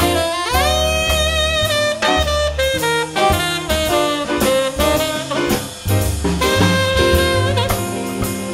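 Live swing jazz by a quintet: a tenor saxophone plays a melodic line, scooping up into a held note just after the start, over walking bass and drum kit.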